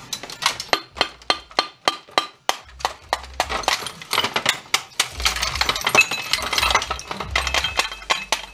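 Metal and plastic parts of a rear projection TV's lamp and optics assembly clinking and cracking as a hand tool pries and knocks them apart. A quick series of sharp clinks comes first, then denser clinking and cracking, with background music underneath.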